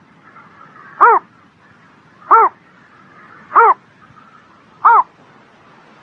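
A pond animal calling: four short, loud calls evenly spaced about every 1.3 seconds, each rising and then falling in pitch.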